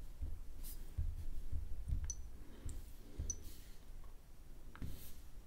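Light clicks and soft low thumps of a smartphone being handled and tapped on its touchscreen, with a few short, sharp high ticks.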